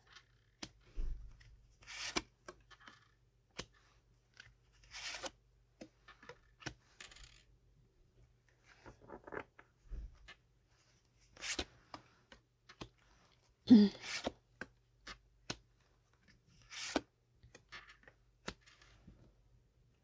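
Tarot cards being handled and shuffled: scattered short rustles, snaps and clicks at irregular intervals, the loudest a sharp snap about fourteen seconds in.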